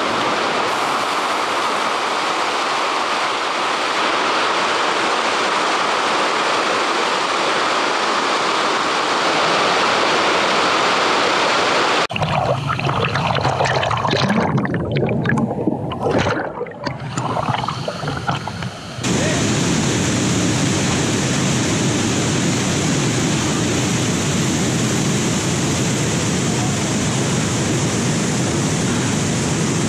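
Rushing water of a forest stream and waterfall, a steady hiss. About twelve seconds in it changes to closer, uneven churning whitewater, and about nineteen seconds in to the fuller, steady rush of a waterfall pouring into a river pool.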